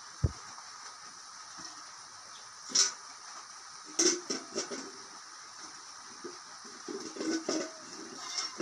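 A cow being milked by hand into a metal pail: irregular spurts of milk hitting the pail, with a single low thump just after the start.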